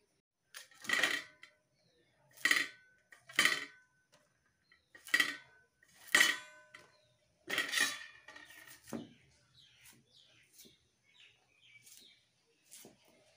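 Stainless steel plate clinking and ringing as it is knocked, about six sharp knocks in the first eight seconds, then only faint small ticks.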